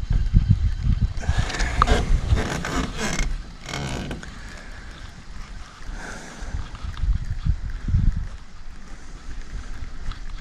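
Wind buffeting the microphone in uneven gusts of low rumble, with a stretch of louder hiss from about one to four seconds in.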